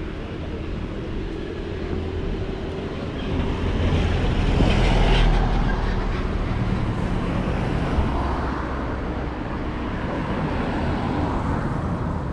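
City street traffic: a steady low rumble of passing cars, with one vehicle passing close by, rising and fading, about five seconds in.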